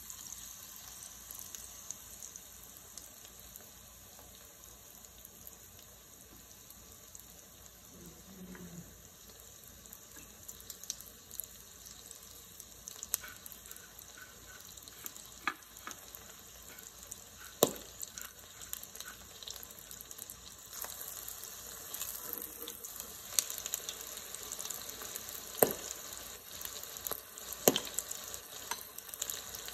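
Breaded calamari rings deep-frying in oil at 375°F in an electric deep fryer: a steady sizzle with sharp crackling pops that come more often in the second half.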